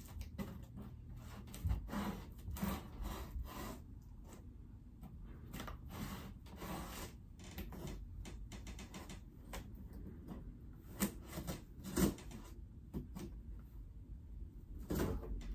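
Packing tape on a cardboard shipping box being slit and scraped open with a small pointed tool: irregular scratching and rasping strokes, with a few sharp knocks against the cardboard.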